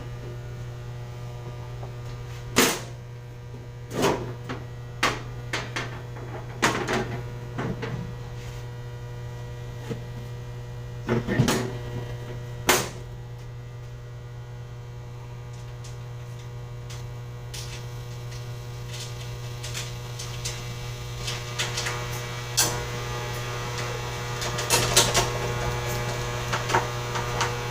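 Steady low electrical mains hum, with scattered sharp clicks and knocks from work on an electrical panel. The clicks come more often in the second half.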